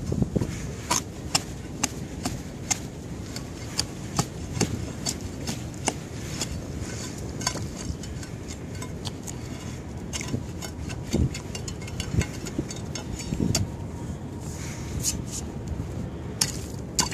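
The end of a pole jabbing and chipping at frozen pond ice, making sharp, irregular taps and cracks as ice chips break off. The strikes come one to three a second over a steady low rumble.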